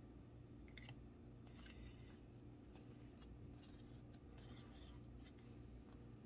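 Faint swishes and clicks of glossy chromium trading cards sliding against each other as they are shuffled one by one through a small stack held in the hands, over a low room hum.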